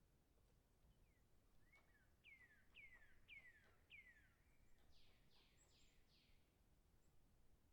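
Faint, distant woodpecker pecking at food: sparse light taps. Over them a songbird sings a phrase of four downward-sliding whistled notes, then four rougher, buzzier notes, which is the loudest sound.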